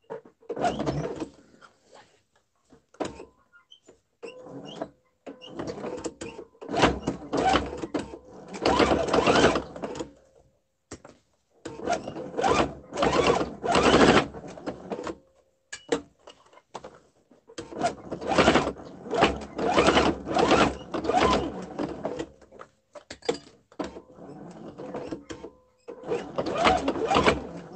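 Electric sewing machine stitching in a series of stop-start runs, each a second to a few seconds long, with short pauses between them as the fabric is turned.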